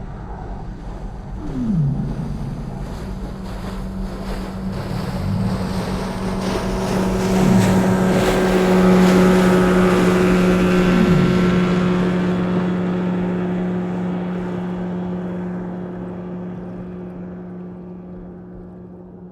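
A motorboat engine passing by, heard underwater: a steady hum that grows louder to a peak about halfway through, then slowly fades away. A few short downward-sliding tones come through early on.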